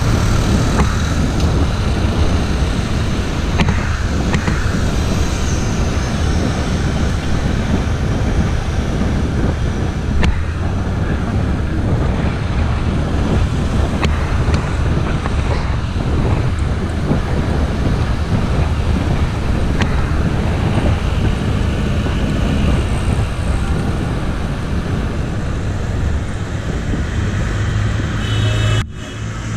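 Wind rushing over the microphone of a camera riding along on a bicycle, mixed with the steady noise of city road traffic, with a brief break near the end.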